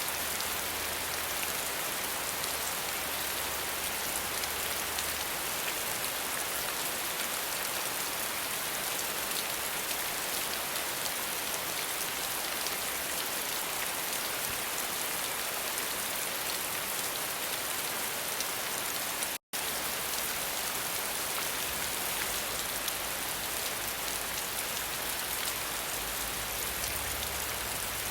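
Steady rain falling, a dense, even patter of drops. It cuts out to silence for a split second about two-thirds of the way through.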